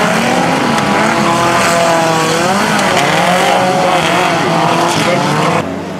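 Several banger racing car engines revving at once, their pitches rising and falling over each other. The sound drops suddenly near the end.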